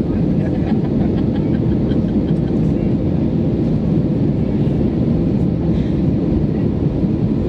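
Steady, loud engine and airflow rumble inside the cabin of an Airbus A319 with CFM56 turbofans, with faint light ticks in the first few seconds.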